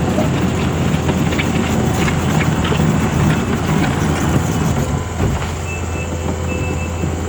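Takeuchi TL12-R2 compact track loader's diesel engine running steadily with a deep hum, the tracks and hydraulics adding a rattly clatter. From about six seconds in, short high beeps sound a few times.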